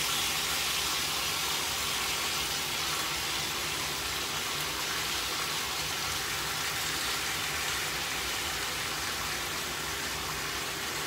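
Thin slices of pork frying in hot oil in a pan, a steady sizzle that is loudest at the start and eases a little.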